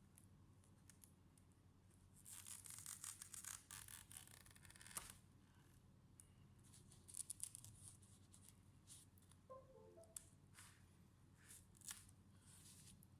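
Faint handling sounds of hand work on the opened laptop: a stretch of scraping or rustling about two seconds in, then a few small sharp clicks.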